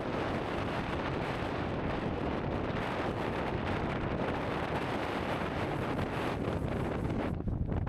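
Strong wind buffeting the microphone, a steady rumbling roar with small gusts that eases slightly near the end.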